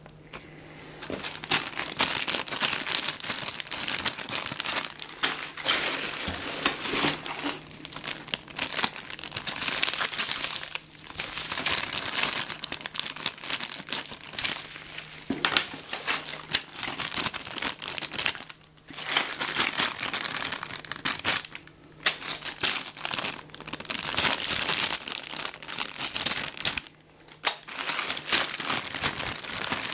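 Clear plastic packaging bags crinkling and rustling as they are handled and pulled open, in bursts with a few short pauses.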